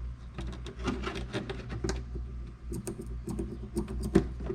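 Scissors clicking and snipping again and again at 30-pound fishing line that is hard to cut through.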